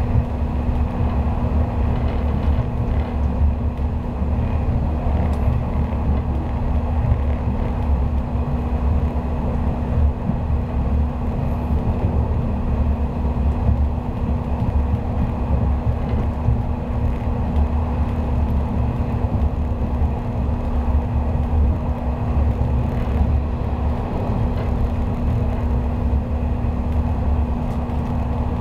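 Running noise heard inside a 485-series electric train travelling at steady speed: a steady low rumble with a constant hum, unchanging throughout.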